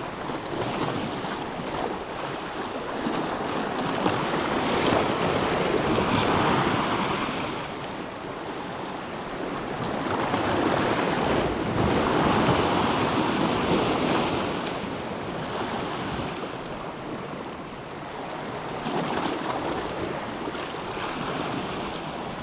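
Sea surf washing against shoreline rocks, swelling and ebbing in long surges three times.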